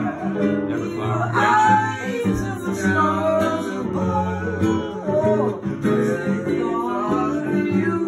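Live music: chords on an electric keyboard with plucked-string accompaniment, under a melody line that slides between notes.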